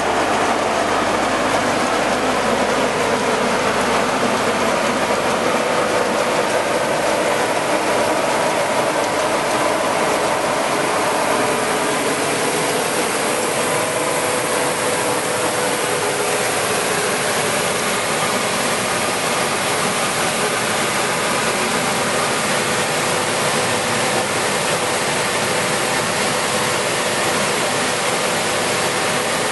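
5XZD-15AC grain cleaner and grader running: a steady, dense mechanical noise of its screens and fan, with a faint hum in it.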